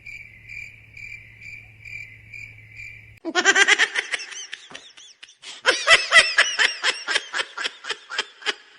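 A cricket chirping steadily in even pulses, about three a second, for the first three seconds. It cuts off abruptly and is followed by loud laughter in rapid, repeated bursts.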